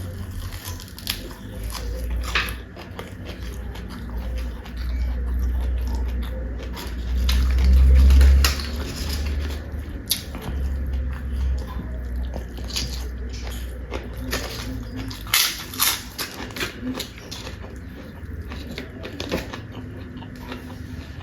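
Close-miked eating: a person chewing and biting food, with scattered sharp crunches, a cluster of them about two-thirds of the way in, over a deep rumble that swells loudest near the middle.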